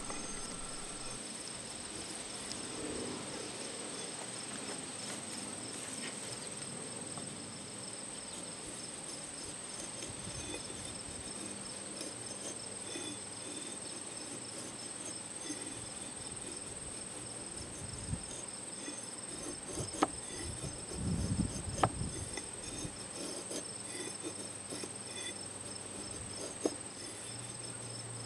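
Insects chirping steadily, with a continuous high trill and a pulsing higher chirp, and a few light clicks and knocks about two-thirds of the way through.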